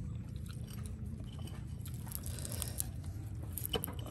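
Fingers pulling apart the charred, crisp crust of grilled pork belly: scattered small crackles and crunches, with a sharper crackle near the end, over a steady low rumble.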